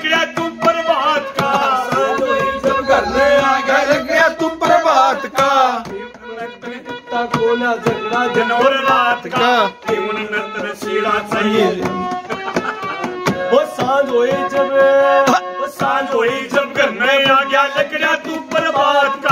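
Harmonium playing the melody of a Haryanvi ragni, with a running rhythm of hands beating on a wooden tabletop as the drum.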